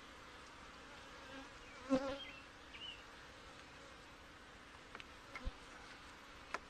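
Steady hum of a crowded honey bee colony in an open hive box, with a few wooden knocks and clicks as frames are handled, the loudest about two seconds in.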